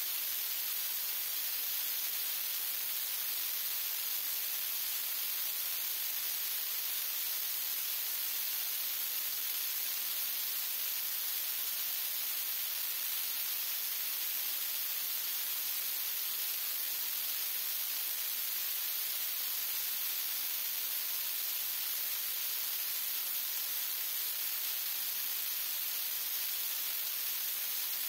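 Steady, unchanging hiss, strongest in the high range, with no clicks, knocks or other events standing out.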